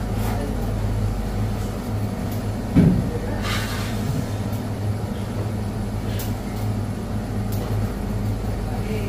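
Steady low hum of commercial kitchen machinery, with a single thump about three seconds in.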